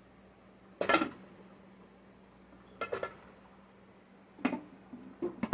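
Metal ladle clinking and knocking against cooking pots in four short bursts, the loudest about a second in.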